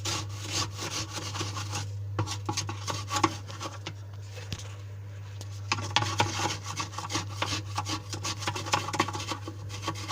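A wooden spoon stirring and scraping coarse dishwasher salt in the water-filled salt reservoir, a gritty rasping in quick irregular strokes that eases off briefly about two seconds in and again around four to five seconds in. A steady low hum runs underneath.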